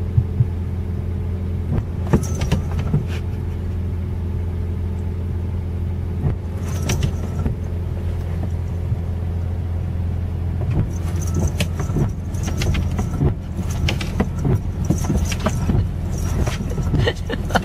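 Steady low hum of a car running at idle, heard from inside the cabin, with scattered light clicks and jingles from a small bell on a cat's collar as the cat moves about on the dashboard, busiest in the second half.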